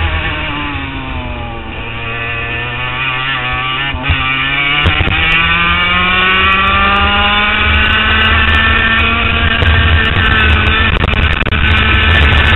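HPV 100 kart's two-stroke engine heard onboard: the revs fall for about two seconds, stay low briefly, then climb steadily from about four seconds in and hold high near the end.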